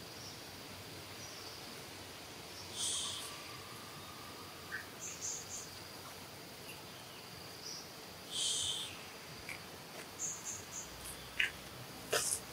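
Outdoor insect ambience: a steady high insect drone with scattered short, high chirps. Two louder, high calls of about half a second come about 3 and 8.5 seconds in, and a few sharp clicks come near the end.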